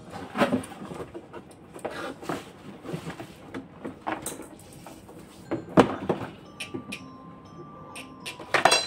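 Plastic baby-rocker parts and a cardboard box being handled and set down: irregular knocks and handling noises, loudest about six seconds in and again near the end.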